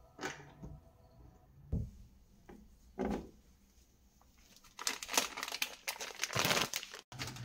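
Three short knocks, then about two seconds of plastic crinkling near the end as a soft plastic packet is lifted off a shelf of household supplies.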